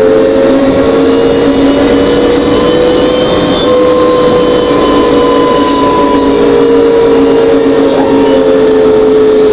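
Interior of a New Flyer E40LFR electric trolleybus under way: the electric drive gives a steady whine that drifts a little in pitch, over road and tyre noise.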